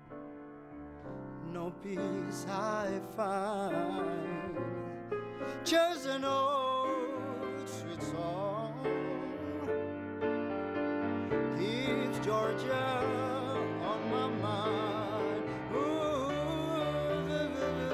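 Grand piano playing a slow blues-ballad accompaniment while a male voice sings drawn-out, melismatic lines with vibrato.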